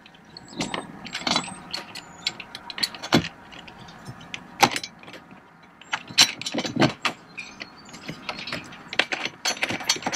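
Metal motor mounting bracket clinking and scraping against the molly bolts sticking up from a plastic kayak deck as it is fitted down over them by hand: irregular light metallic clicks and clinks, a few sharper ones.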